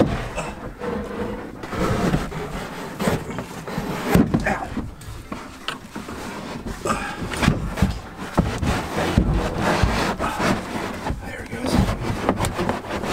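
A large rear seat delete panel scraping, rubbing and bumping against the car body as it is worked through the trunk opening, with irregular knocks throughout.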